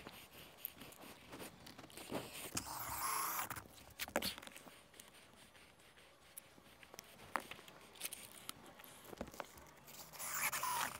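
Scattered scrapes, clicks and knocks of handwork on an asphalt-shingle roof, as metal flashing and aluminium mount brackets are handled against the shingles and a caulking gun of roofing cement is worked. Longer scraping swells come about three seconds in and again near the end.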